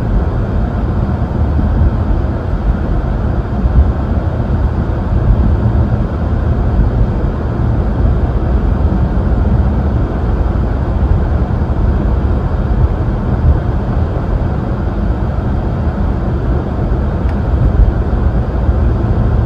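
Steady road and engine noise inside a moving car's cabin, heavy and low, with the air conditioning blower running.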